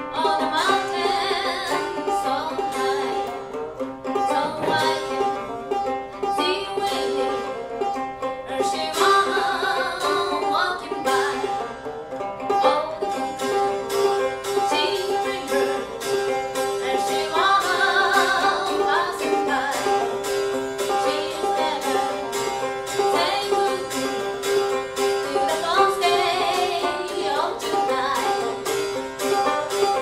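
Live old-time music: a banjo picked in a steady, fast rhythm, with a wavering melody line rising over it three times.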